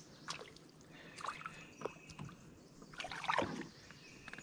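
Hooked fish splashing at the water's surface beside a small fishing boat as it is reeled in: a few short, scattered splashes and knocks, the loudest about three seconds in.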